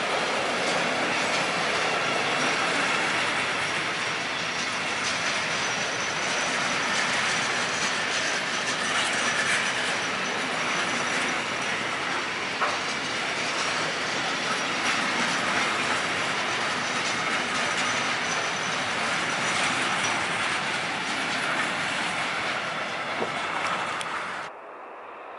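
Intermodal freight train of semi-trailers on pocket wagons passing close by, its wheels running over the rails in a steady rumble and clatter. The sound cuts off abruptly near the end.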